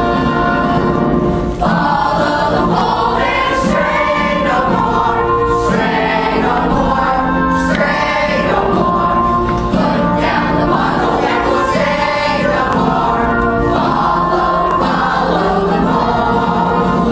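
A chorus of young voices singing together in a hymn-like style over an instrumental accompaniment.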